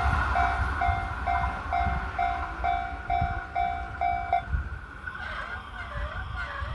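Japanese level-crossing alarm ringing about twice a second, over the fading rumble of a train that has just passed. The alarm stops about four and a half seconds in.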